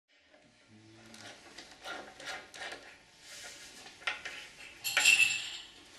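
Metal fittings of a glass sliding-door system clinking and scraping as they are handled and tightened with a hex key against the glass panel. The loudest is a sharp, ringing clink about five seconds in.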